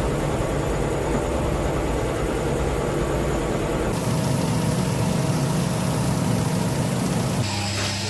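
Steady hum of electric workshop machinery running. Its low tones shift about four seconds in and again near the end.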